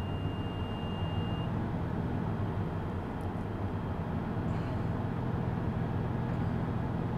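School bus engine idling steadily while the air compressor recharges the brake system. A steady high warning tone sounds at first and cuts off about a second and a half in.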